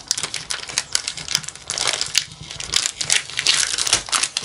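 Clear plastic wrapper of a scrapbook paper pad crinkling and crackling as it is handled and pulled open, in dense irregular crackles with a short lull about halfway through.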